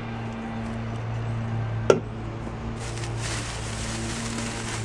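A single sharp click about two seconds in as a soda can is set down, then plastic bag and clothing rustling as gloved hands dig through a box, over a steady low hum.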